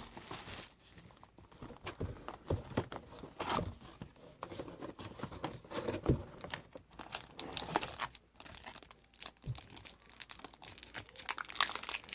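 Trading-card wrapping crinkling and tearing as it is opened by hand, in irregular rustles and crackles.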